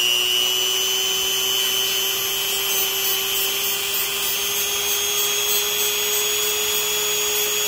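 Dremel rotary tool running at a steady high whine, its grinding stone truing the face of a bent engine valve.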